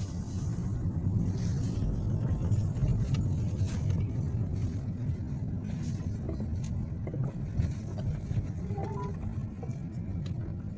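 Car engine and road noise inside the cabin while driving: a steady low rumble.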